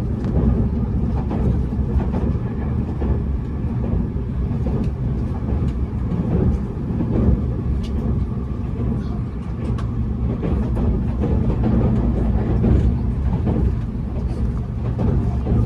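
Running noise inside a Tobu Spacia X (N100 series) limited-express car: a steady low rumble of wheels on rail, with a few faint clicks here and there.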